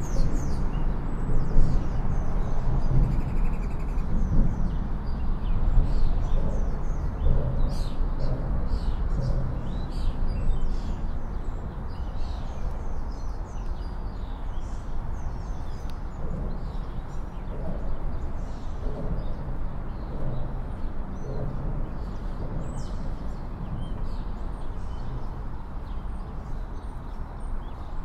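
Songbirds chirping over a steady low rumble of city traffic.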